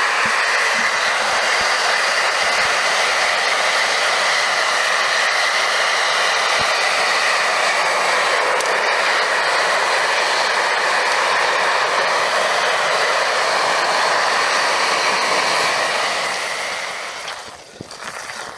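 Shop vac blowing forced air into a charcoal-fired homemade melting furnace: a loud, steady rushing roar of blower and fire that dies down about sixteen seconds in.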